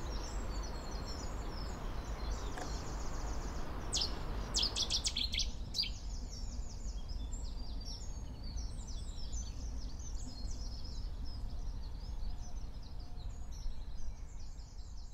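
Dawn chorus: several small songbirds singing at once, a mix of short chirps and trills over a low background rumble. About four seconds in, one bird gives a loud burst of rapid repeated notes, and the low rumble drops away soon after.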